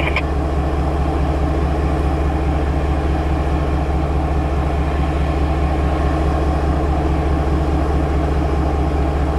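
An engine idling steadily, a low, even hum.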